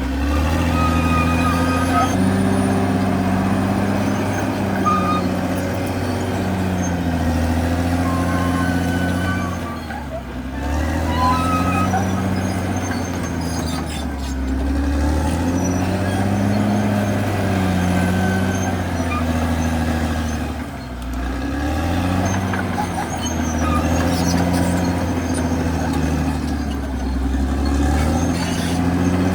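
CAT D6R XL bulldozer's diesel engine running, its pitch dropping and recovering a few times, about 10, 14 and 21 seconds in, with faint high whines above it.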